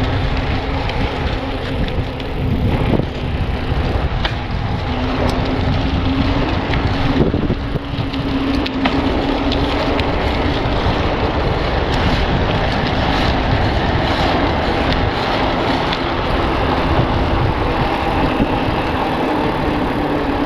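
Wind rushing over a handheld action camera's microphone and tyre noise while riding a mountain bike, with a steady low hum and scattered light clicks.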